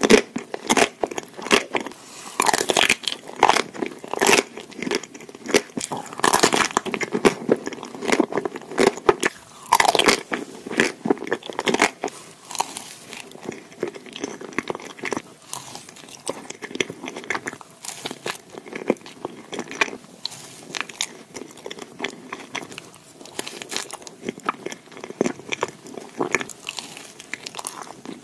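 Close-miked biting and chewing of a chocolate-coated ice cream bar, its crisp shell crackling and crunching. From about halfway through comes softer, quieter chewing of an ice cream sandwich with chocolate wafers.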